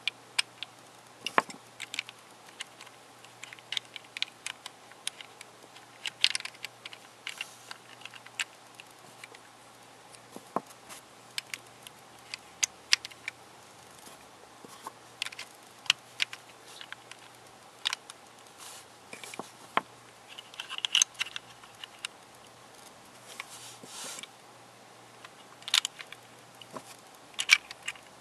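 Hard plastic pieces of a Square-2 twisty puzzle clicking and clacking as they are handled, prised off the puzzle and set down: a string of sharp, irregular clicks.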